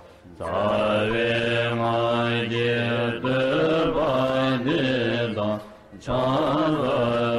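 Tibetan Buddhist mantra chanted in long phrases held on a steady low pitch, with short breaks near the start and about six seconds in.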